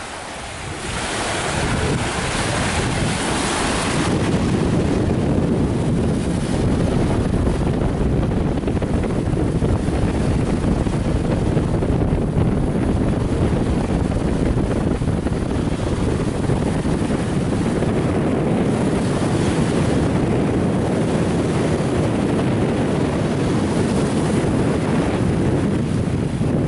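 Wind buffeting the microphone over small waves washing onto a sandy beach, a steady noise heavy in the low end, with a brighter hiss of surf up to about four seconds in.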